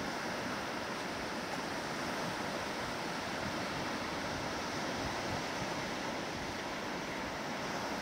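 Small waves breaking and washing up a flat sandy beach: a steady surf hiss with no separate crashes standing out.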